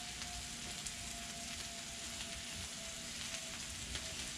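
A thick steak searing on a hot carbon steel griddle, sizzling steadily with a few faint pops. The steak's second side is on a fresh, still-hot spot of the griddle.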